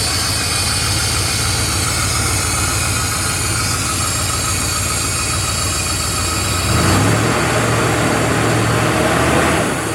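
Truck engine idling steadily, then speeding up and running louder for about three seconds near the end before dropping back. The idle is being raised, after the homemade tach showed only about 500 RPM, ahead of setting the ignition timing.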